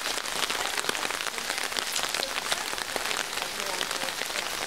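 Steady rain falling on hard surfaces, with many separate close drops and drips hitting throughout.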